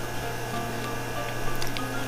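Background music of short held notes at changing pitches over a steady low hum, with a few faint clicks about one and a half seconds in.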